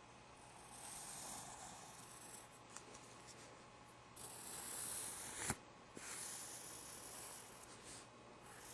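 A pencil scratching across paper in drawing strokes, in several stretches of a second or two, with one sharp tap a little past halfway.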